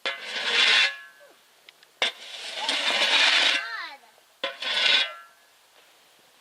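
A snow shovel scraping over pavement three times, each a rough scrape of about a second; the second, longer scrape ends in a short falling squeal.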